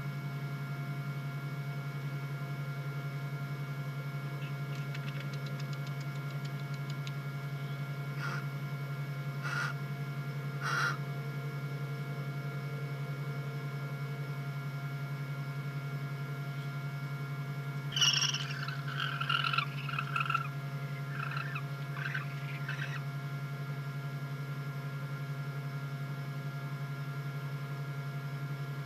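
Barn owls calling: a few short calls about eight to eleven seconds in, then a louder run of squeaky calls for about five seconds from around eighteen seconds in. A steady electrical hum from the nest camera's audio runs underneath.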